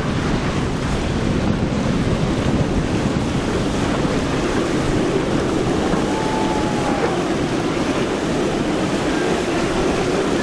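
Outboard-powered center-console boats running fast, their engines and hull spray blending with the surf and wind noise into a steady rush.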